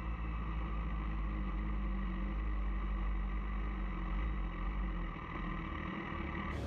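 Sport motorcycle engines idling steadily on a race grid, heard through an onboard camera, with a strong low hum and an even engine drone.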